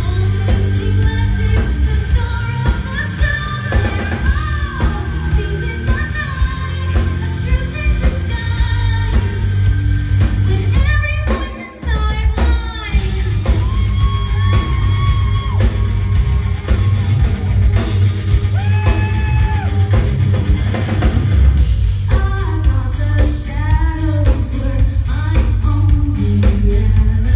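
Live rock band playing through a club PA: a woman singing lead over electric guitar, bass guitar and drums. The band drops out for a brief break about eleven seconds in, then comes straight back in.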